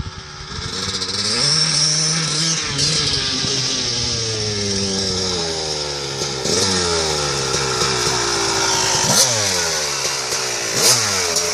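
2002 Kawasaki KX250's two-stroke single-cylinder engine, getting louder over the first couple of seconds as the bike comes closer, its revs rising and falling as the rider works the throttle. Near the end, pulled up close, it gives two sharp throttle blips.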